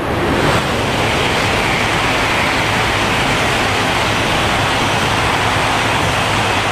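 Shinkansen bullet train passing through a station at high speed: a loud, steady rush of air and wheel noise.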